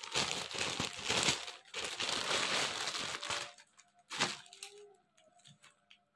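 Clear plastic packaging bag crinkling as a folded fabric suit is pulled out of it: a continuous rustle that stops about three and a half seconds in, then one sharp crackle about half a second later.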